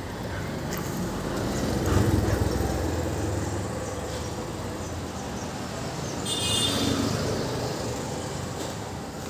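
Road traffic noise: a low rumble that swells about two seconds in, with a short high-pitched tone about six and a half seconds in.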